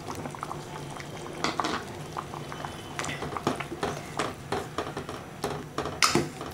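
Thick tamarind curry (sundakkai kara kuzhambu) bubbling in the pot while a spoon stirs in freshly added ground coconut paste, with many short pops and clicks throughout and one louder knock about six seconds in.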